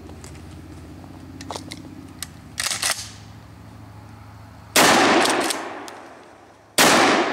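Two shots from a 12-gauge Remington 870 pump shotgun with an 18¼-inch cylinder-bore barrel, firing 2¾-inch 000 buckshot about two seconds apart. Each shot is a sharp, loud blast whose echo trails off over a second or more.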